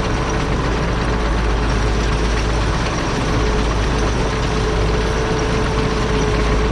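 Tractor engine running steadily under a dense mechanical noise, with a steady whine held throughout.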